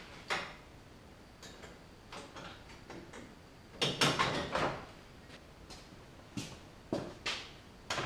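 Plastic clicks, knocks and scraping as the grille's plastic retaining clips are popped loose and the grille is worked free of the 2012 Chevrolet Silverado 3500HD's front end. Scattered single clicks, with a louder run of scraping knocks about four seconds in.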